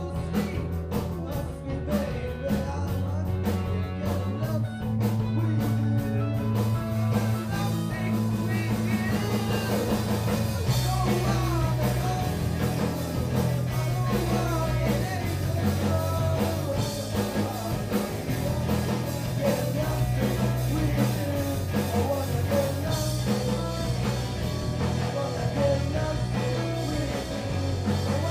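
Live rock band playing: amplified electric guitars and bass over a drum kit, with a singer. The bass holds long notes that change every few seconds.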